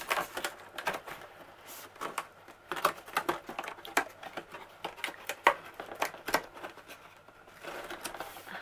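A cardboard box being handled as its flaps and tabs are worked: irregular taps, scrapes and rustles of cardboard.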